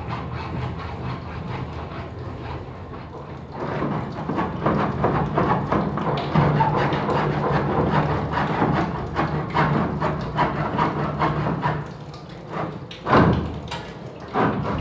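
Hands working PVC drain pipe and its fittings, making irregular scraping and clicking for several seconds, then a couple of sharper knocks near the end. A steady low hum runs underneath throughout.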